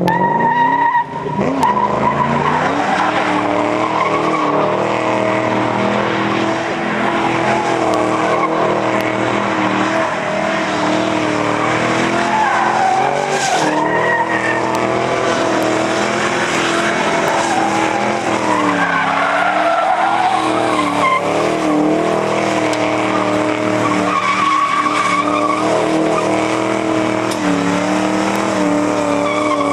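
1988 Ford Mustang doing a long burnout: the engine is held at high revs while the rear tyres spin and squeal against the pavement. The revs waver and dip a few times before climbing again.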